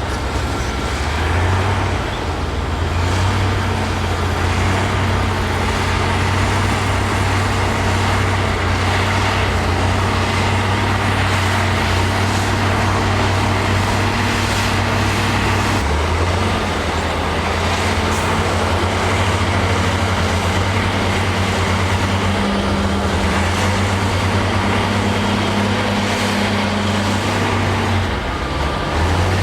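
Heavy diesel engine of earthmoving machinery working steadily under load, its note dropping briefly about halfway through and again near the end.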